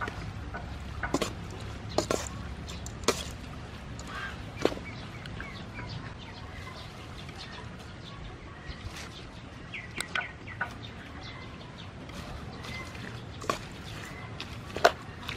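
Salad being tossed by hand in a stainless steel bowl, the sea snail shells knocking against the metal in scattered sharp clicks, about one a second at first. Birds chirp faintly in the background.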